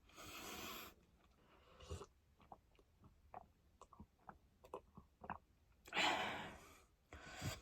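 A person chewing food close to the microphone: many small soft mouth clicks and smacks, with a couple of soft breaths, one near the start and one about six seconds in.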